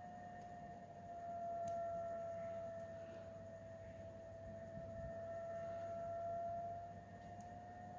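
A faint steady whistling tone that sags slightly in pitch and comes back up, swelling twice in loudness, with a few light clicks from small metal drive-shaft parts being fitted together by hand.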